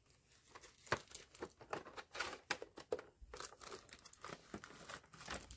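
Clear plastic packaging bags crinkling as they are handled, in short, irregular crackles.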